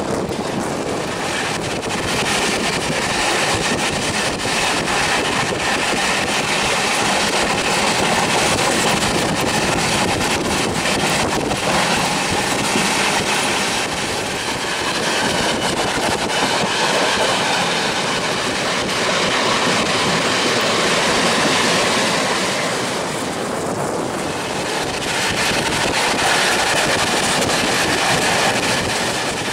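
Express passenger train running at high speed, heard from the open door of a coach: a steady rush of wheels on rails and wind, with the clickety-clack of wheels over the rail joints.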